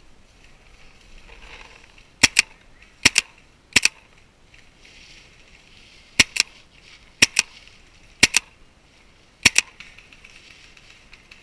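Intense Autococker paintball marker firing close to the microphone: seven sharp pops, each a quick double shot, spaced unevenly about a second apart.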